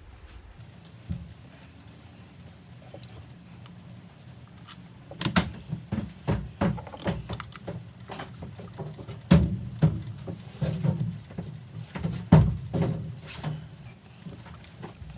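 Irregular metallic clinks, knocks and rattles of hand work with tools or small metal parts, starting about five seconds in, over a low steady hum.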